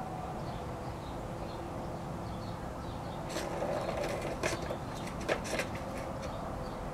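Kittens scuffling and wrestling on grass beside a plastic toy: a cluster of rustles and light knocks starting about three seconds in and lasting a couple of seconds, over a steady low outdoor rumble with faint bird chirps.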